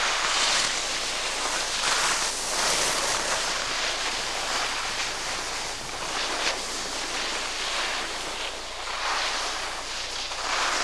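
Rushing hiss of skiing downhill: wind buffeting the camcorder microphone and skis scraping over snow, swelling and fading every second or two with the turns.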